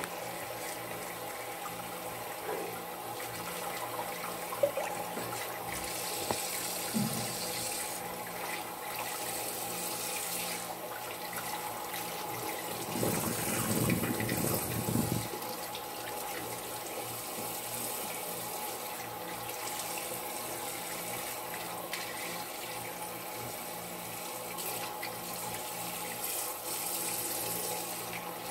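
Water running steadily from a tap into a sink while someone washes their face with their hands. For a couple of seconds around the middle the water splashes louder and the hands rub at the face.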